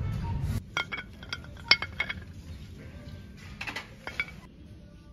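Light clinks with a short ringing tone as Christmas ornaments are handled on a metal pegboard display hook: a quick run of about six in the first two seconds, then a few more about three and a half seconds in. A low rumble cuts off about half a second in.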